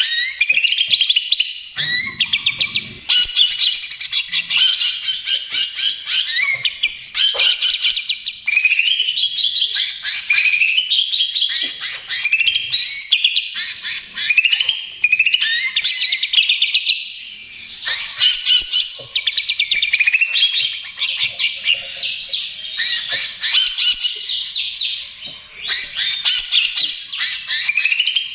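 Cucak ijo (green leafbird) singing almost without a break in fast, chattering 'trotol' phrases of rapid repeated notes and quick rising sweeps, a new phrase every couple of seconds.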